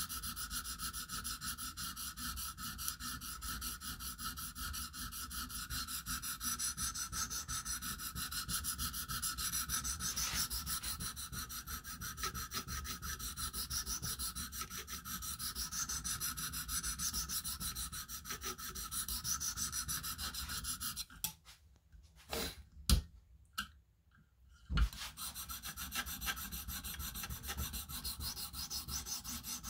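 A 300-grit stone on a KME guided sharpening system rubbing back and forth along an M390 steel knife edge: a steady, fine scraping that refines the scratch pattern left by the coarser stone. The strokes stop for about four seconds near the end, with a few sharp knocks, then start again.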